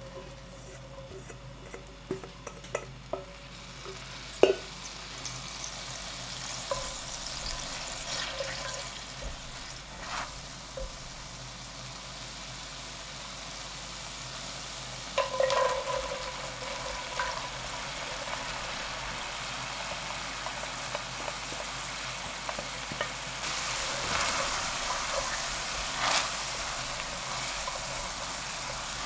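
Meat juices sizzling and bubbling in a hot stainless steel sauté pan, the sizzle growing louder, with a few knocks and clinks of utensils on the pan. Near the end the sizzle gets louder as chopped leek cooks in the juice and is stirred with a spatula.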